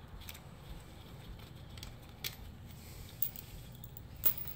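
A few short, light metallic clicks and taps from parts being handled on a bare engine block, over a low steady hum.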